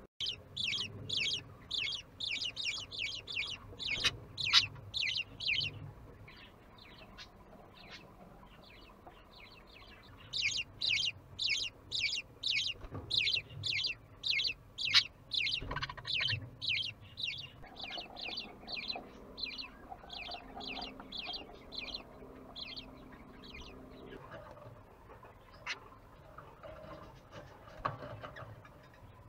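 Budgerigars calling: rapid, evenly repeated high cheeps, about three or four a second, in two long runs with a pause of several seconds between, then fainter and sparser.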